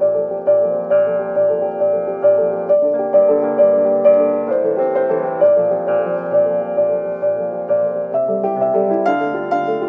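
Solo upright piano playing a steady figure of struck notes, about two a second, in the middle register. Higher notes come in near the end.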